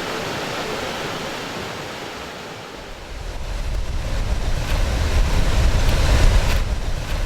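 Steady rushing of a waterfall. About three seconds in, a heavy low rumble of wind buffeting the microphone comes in and grows louder.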